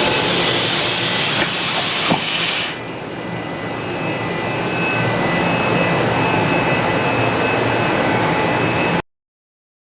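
Mori Seiki SV-50/40 CNC vertical machining center running: a steady mechanical hum with faint high whines, and a loud hiss that stops about three seconds in, just after a sharp click. The sound cuts off abruptly near the end.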